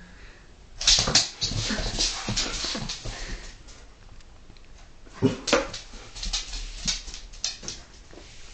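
Two poodles at play, making bursts of rough, whining dog noises. The noises are loudest about a second in and again around five seconds.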